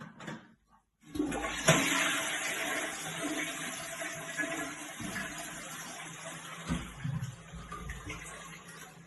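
Toilet flushing: a rush of water starts about a second in, surges sharply, then slowly fades as the bowl drains and refills.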